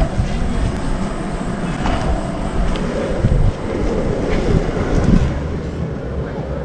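Skateboard wheels rolling over a rough road, with a few clicks from bumps and wind on the microphone.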